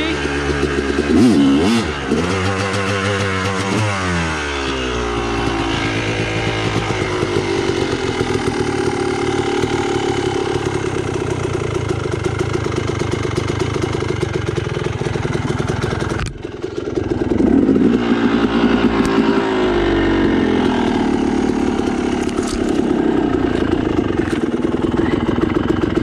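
Dirt bike engine running under changing throttle, its pitch rising and falling as it revs. About two-thirds of the way through the sound drops off suddenly for a moment, then the engine picks up again.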